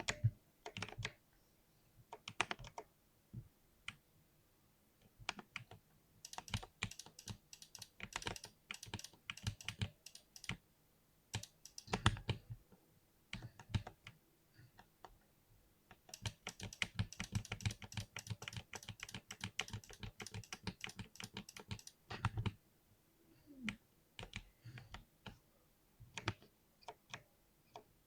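Mechanical keyboard with Cherry MX switches being typed on in uneven bursts of key clicks: two longer fast runs, one about a quarter of the way in and one past the middle, with short pauses and scattered single keystrokes between.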